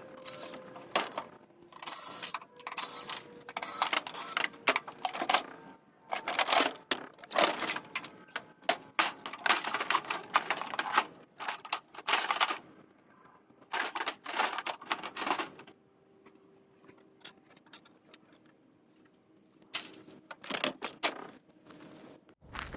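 Bursts of rapid mechanical clicking and clattering, with a quieter stretch about two-thirds of the way through.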